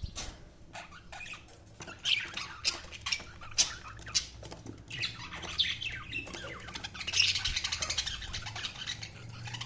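Budgies chirping and squawking in short, sharp calls, breaking into a fast run of chatter about seven seconds in.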